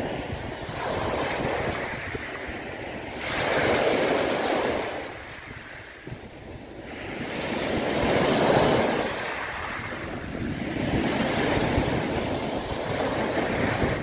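Ocean waves rising and falling in slow surges of rushing water. Two big swells come about a quarter of the way in and just past halfway, with a dip between them, then the wash builds again toward the end.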